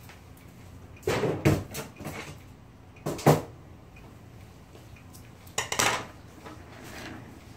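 Metal clattering and knocks as a typewriter is handled and moved about, in three short bursts with a fainter one near the end.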